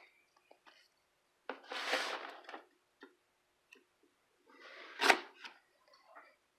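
Cardboard shipping box being opened by hand: a rustling scrape about a second and a half in, then another about five seconds in that ends in a sharp knock.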